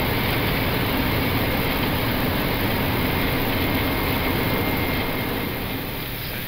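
Flight-deck noise of an Airbus A321 decelerating on its landing rollout, with reverse thrust just deployed and the autobrake working: a steady rumble of engines and wheels on the runway, easing down near the end.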